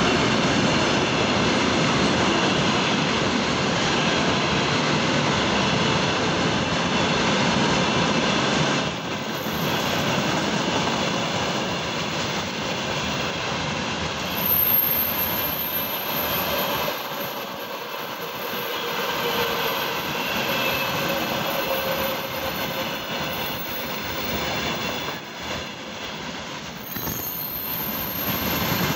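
Freight train's wagons rolling past at speed: a steady rumble of steel wheels on the rails. It is loudest for the first nine seconds or so, then a little quieter.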